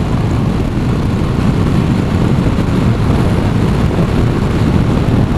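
Motorcycle under way: a steady rumble of engine and wind noise.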